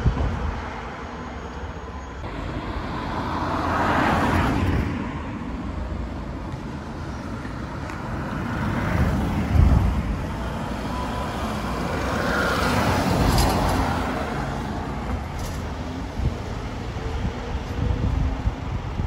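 Street traffic: cars and vans passing by on the road, the tyre and engine noise swelling and fading several times, with no siren sounding.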